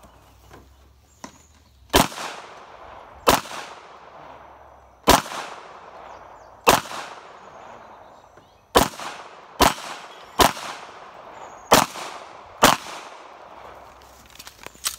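Semi-automatic pistol firing about ten single shots at an uneven pace, from roughly half a second to two seconds apart, each shot followed by a short fading echo.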